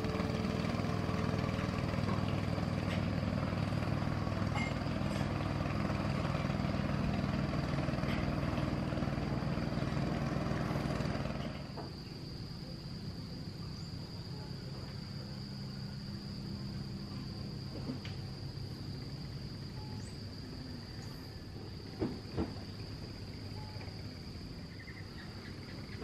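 Small engine of a wooden longboat running steadily on the river, cutting off about halfway through. A steady high insect whine carries on throughout, with two short knocks near the end.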